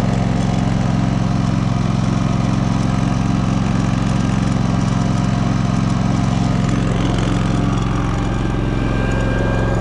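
DuroMax XP16000iH 16 kW inverter generator's engine running steadily under household load.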